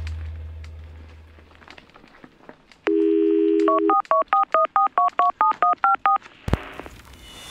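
A telephone dial tone for about a second, then a quick run of about fourteen touch-tone keypress beeps, as when a number is dialled. A sharp click follows near the end.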